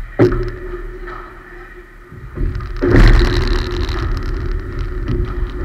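Padel rally: a sharp knock of the ball being struck about a quarter second in, with a few lighter ticks after it. From about halfway on, a dense low rumble covers everything.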